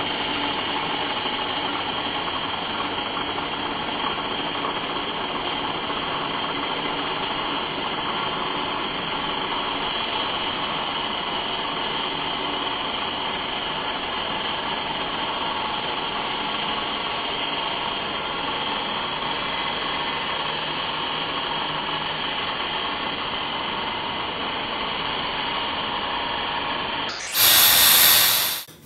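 A workshop machine running steadily, with a loud, harsh burst near the end lasting about a second and a half.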